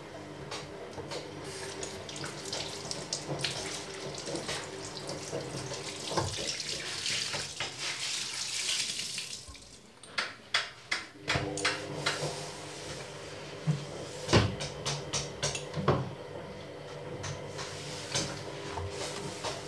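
Tap water running into a ceramic bathroom washbasin while a cleaning cloth is rinsed and wrung under it. The water stops about halfway through, and a run of sharp knocks and rubbing follows as the cloth wipes the basin.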